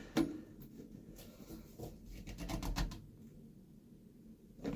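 Scattered small clicks and scraping of garbage disposal parts being handled and fitted by hand, with a sharper knock near the end.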